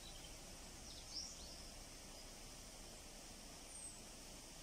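Faint outdoor ambience with a steady hiss, broken by a few short, high-pitched chirps of small birds about a second in and once more near the end.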